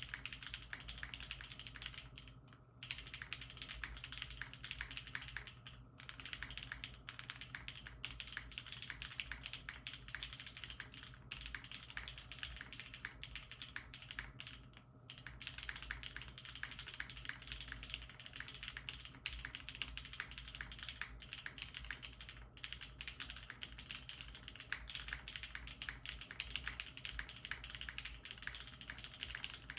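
Fast, continuous typing on a Papilio mechanical keyboard with Durock POM switches and ABS keycaps: a dense stream of key clacks, broken by brief pauses about two, six and fifteen seconds in.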